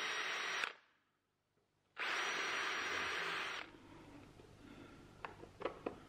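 Cordless drill running at speed, boring screw pilot holes into a wooden door frame. There are two runs of about a second and a half each, with a steady high whine; the first cuts off suddenly and is followed by a second of silence. A few light clicks and taps come near the end.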